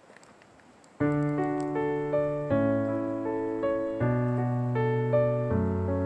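Background piano music comes in abruptly about a second in, after faint ambient sound. It plays held chords, with a new chord about every second and a half.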